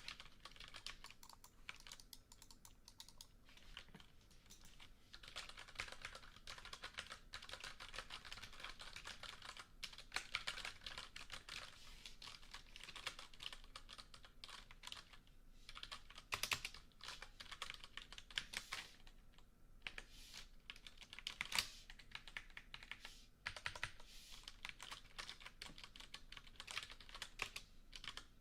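Typing on a computer keyboard: quick runs of key clicks broken by short pauses, with a few single keystrokes louder than the rest.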